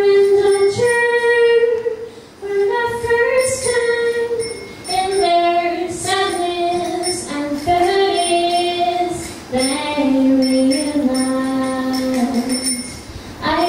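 A woman singing into a microphone: a slow line of long held notes in phrases of one to two seconds, with short breaks between them.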